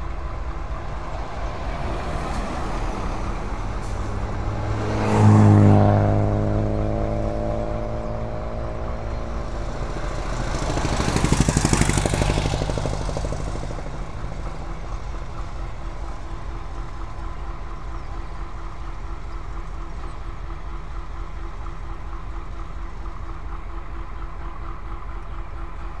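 Two road vehicles pass close by: the first at about five seconds with an engine note that falls in pitch as it goes past, the second a few seconds later with a swell of tyre noise. Underneath runs a steady low rumble of idling diesel locomotives.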